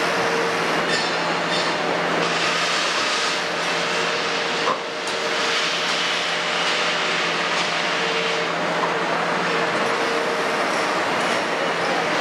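Kobelco 350 excavator's Hino J08 six-cylinder diesel running as the machine works its boom and bucket, with a steady whine over a wash of noise, a lower hum that drops out near the end, and a single knock about halfway through.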